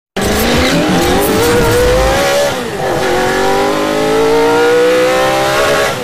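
Racing-car engine sound effect accelerating hard: the pitch climbs, drops at a gear change a little under three seconds in, then climbs again. Loud.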